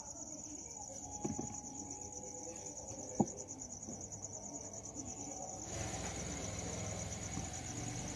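A thin rolling pin rolls dough out on a floured board, with two light knocks. A steady, high-pitched insect trill runs throughout, and a soft rushing noise comes in about six seconds in.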